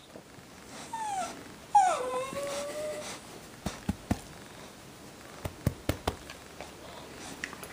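A dog whining twice: a short falling whine, then a louder one that drops and holds a steady pitch for about a second. Several sharp clicks follow.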